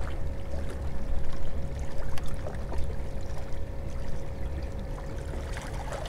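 Wind buffeting the microphone over water washing against jetty rocks, with a faint steady hum until near the end.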